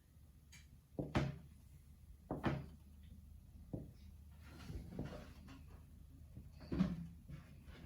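A knife knocking against the board as rolled-out dumpling dough is cut, about five dull, irregular knocks roughly a second apart.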